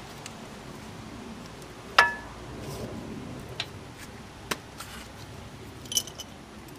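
Metal brake parts knocking together as a disc brake caliper is fitted over the pads and rotor: four sharp clinks. The loudest, about two seconds in, rings briefly.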